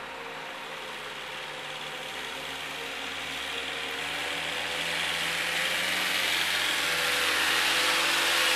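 Engine of a truck-mounted forklift running as it drives, growing steadily louder from about four seconds in as it comes closer.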